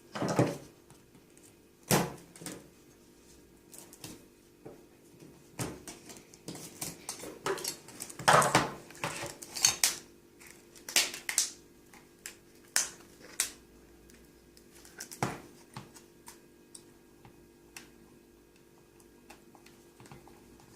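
Irregular sharp clicks, taps and short scraping sounds as a cracked glass touch panel is prised and worked off a car stereo's LCD screen with a hand tool, against a faint steady hum.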